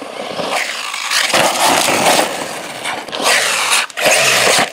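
Arrma Typhon 6s electric RC buggy driven in several bursts of throttle on loose gravel and dirt, its tires churning and spitting grit over the electric motor's whine.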